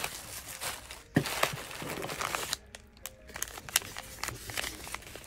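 Bubble wrap and plastic packaging crinkling and crackling as a hand rummages inside a cardboard shipping box. The crackle starts sharply about a second in, pauses briefly near the middle, and then returns as scattered crinkles.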